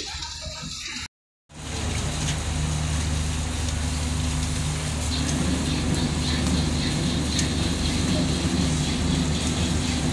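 A passenger ship's engines running with a steady low drone and hum, starting after a short cut-out about a second in, while the ship manoeuvres in harbour.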